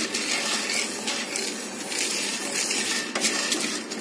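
Coffee beans rattling and scraping as they are stirred with a wooden spoon around a nonstick frying pan while pan-roasting, over a steady hiss, with a sharper knock about three seconds in.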